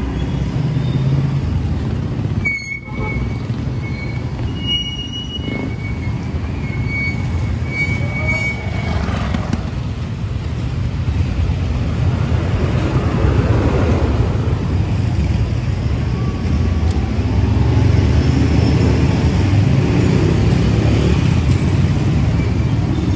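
Street traffic ambience: motorcycle and tricycle engines running and passing, a steady low rumble that grows louder in the second half.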